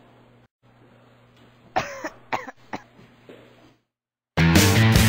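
A person coughs and clears their throat three times about two seconds in, over a faint steady hum. After a moment of silence, loud guitar rock music starts near the end.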